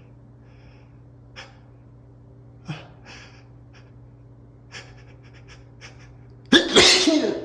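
A man's short, sharp breaths as a sneeze builds, then one loud sneeze near the end.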